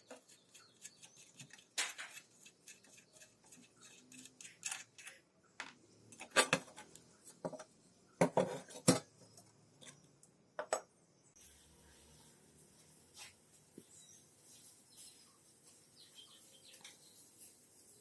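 Metal parts and hand tools clinking and knocking against each other in irregular bursts, loudest through the middle, then only a few light ticks near the end.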